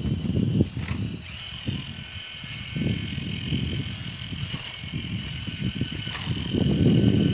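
Kabolite RC hydraulic excavator working its arm and bucket in gravel: a steady high whine from its pump drive, which steps up in pitch about a second in, over an uneven low rumble that grows loudest near the end.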